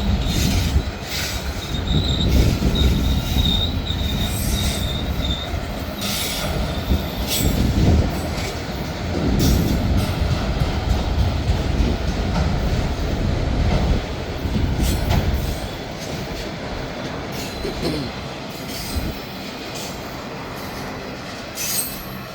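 Freight train cars rolling past with a steady low rumble and scattered clanks, a high wheel squeal during the first few seconds. The rumble fades over the last several seconds.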